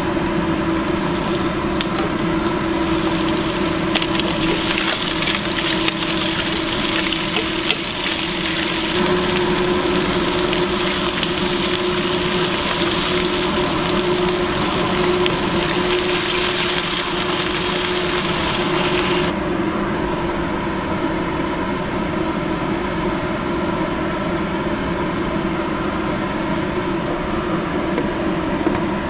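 Pieces of rockfish and cabezon with ginger sizzling and crackling in hot oil in a nonstick frying pan, over a steady hum. About two-thirds of the way through the sizzling cuts off abruptly, leaving only the steady hum.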